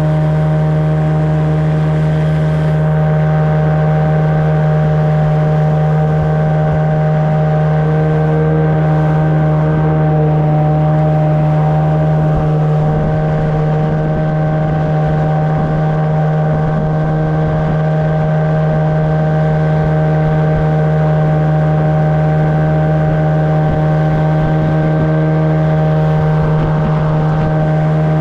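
Yamaha water-jet outboard motor on a boat under way, running at a steady speed with an unchanging pitch.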